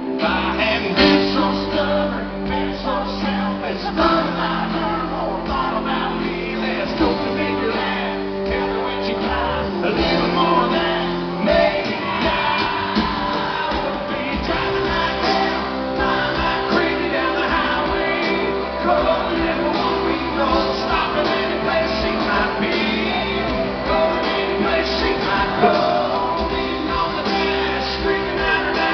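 Live country band playing with a male lead vocal, recorded from the audience so that the sound is distant and reverberant, with the top end cut off.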